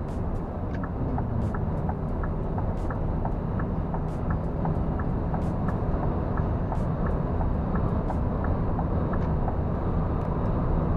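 Inside a Scania R440 truck cab on the move: steady engine and road drone, with the turn-signal indicator ticking evenly about three times a second from about a second in until near the end, as the truck pulls out to overtake.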